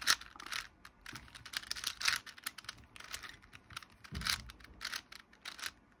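A 4x4 Rubik's cube being turned by hand: irregular plastic clicking and clacking, several a second, as its layers are twisted through an edge-pairing algorithm.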